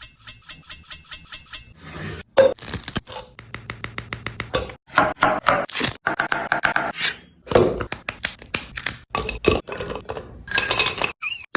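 Kitchen utensils knocking, scraping and clinking against pots and dishes in quick, irregular strokes, with an even ticking for the first two seconds or so.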